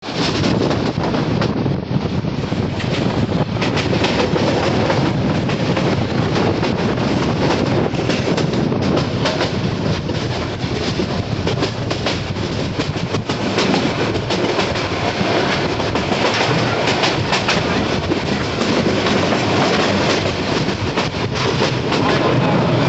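Moving passenger train heard from on board: steady rumble of the carriage with wheels clicking over rail joints.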